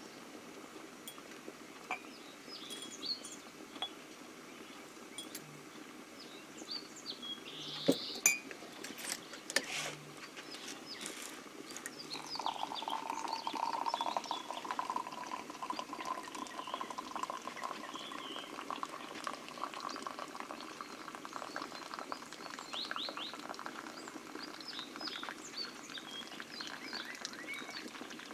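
Samovar boiling steadily, with birds chirping throughout. A few sharp clinks of crockery come about a third of the way in, and a steadier boiling or pouring sound joins about halfway.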